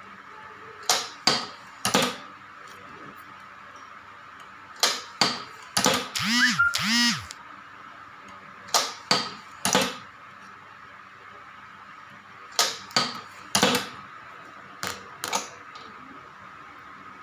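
Shuttlecock-making machine working in cycles: groups of three or four sharp clacks about every four seconds over a steady hum. About six seconds in come two short tones that rise and fall.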